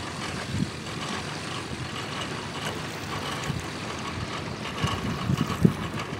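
Outboard motor of a nearby aluminium fishing boat running with a steady hum over a windy, noisy background, with a few short low thumps near the end.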